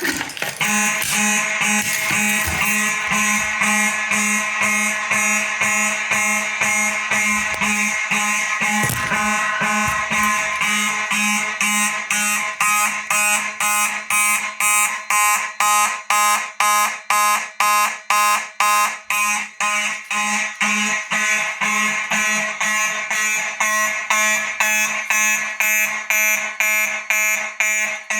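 Faraday mechanical fire alarm horns buzzing loudly in fast, even pulses. The system is in alarm after a pull station was activated.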